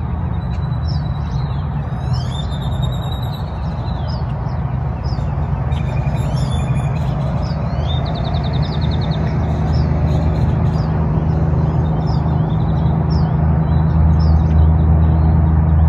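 Small birds chirping, with a rapid trill about seven seconds in, over a steady low rumble that grows louder toward the end.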